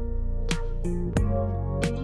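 Background music with a steady beat, about one and a half beats a second, over held notes.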